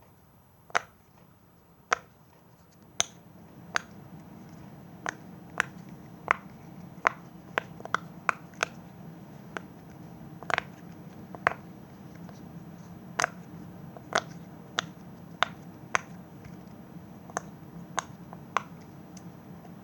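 Square tie-dye silicone pop-it fidget toy having its bubbles pressed one at a time: a series of sharp pops, about one a second with uneven gaps.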